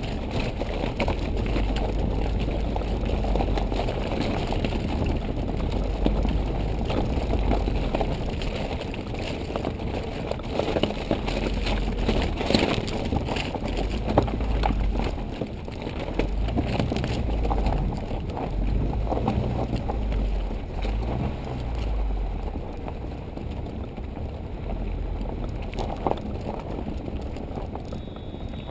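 Off-road vehicle driving slowly over a rough gravel track: a steady engine and tyre rumble with scattered knocks and rattles as it rides over bumps.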